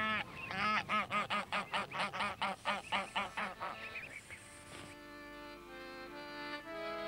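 Domestic geese honking in a rapid run of calls, several a second, fading out about four seconds in. Accordion folk music with held notes comes in near the end.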